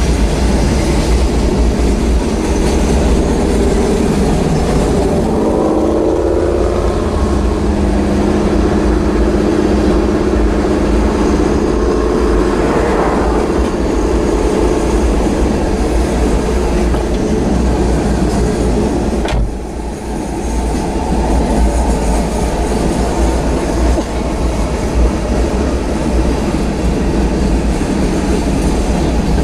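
Freight train cars rolling past close by: a steady, heavy rumble and clatter of steel wheels on rail. Ringing tones rise above the rumble for several seconds from about five seconds in, and a single sharp bang comes about two-thirds of the way through.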